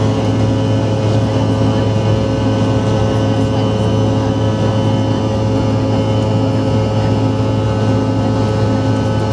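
Cabin noise of a Bombardier CRJ-900's rear-mounted GE CF34-8C turbofan engines heard from a rear window seat as the jet rolls along the runway: a steady drone with a strong low hum and several steady whining tones.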